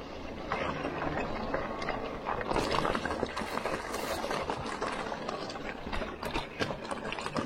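Bike tyres rolling through wet mud and puddles, with a steady stream of crackling splashes and squelches.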